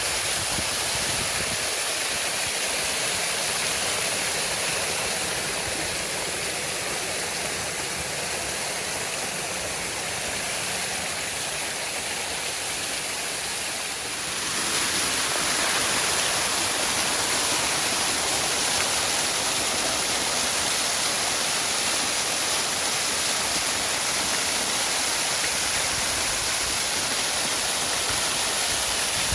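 Waterfall rushing: a steady wash of falling water. About halfway through it turns slightly louder and brighter.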